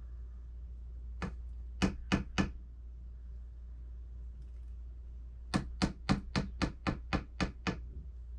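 Wooden honey dipper knocking against a glass blender jar to shake off the honey: three quick knocks about two seconds in, then a run of about nine knocks, roughly four a second, in the second half.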